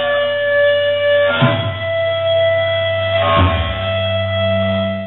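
Live punk band's electric guitars and bass holding long, ringing notes over a steady low drone, with a struck change of notes about one and a half seconds in and again about three and a half seconds in.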